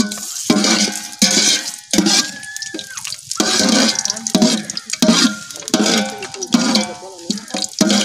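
Whole spices sizzling and crackling in hot oil in an aluminium pot. A slotted steel ladle scrapes and clinks against the pot again and again as they are stirred.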